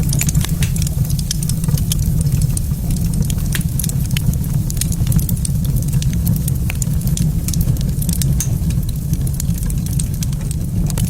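Wood fire in a fireplace crackling, with many irregular sharp pops and snaps over a steady low rumble.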